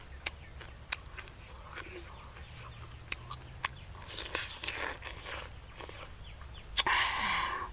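Eating sounds: scattered sharp crunching clicks and chewing, with a longer, louder noisy burst near the end.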